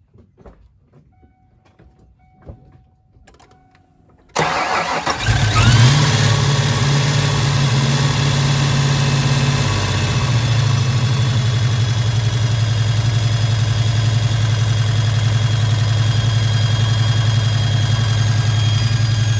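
After a few faint clicks, a 1995 Mustang GT's supercharged 5.0 V8 cranks about four seconds in, catches and revs briefly with a short rising whine, then settles into a steady idle. The idle is choppy, which the owner puts down to valvetrain trouble: valves and rockers out of adjustment and lifters needing replacement.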